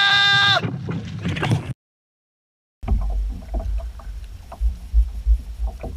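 A man's long held shout ends about half a second in; after a brief dead silence at a cut, wind rumbles on the microphone of a kayak on choppy sea, with water lapping and small knocks against the hull.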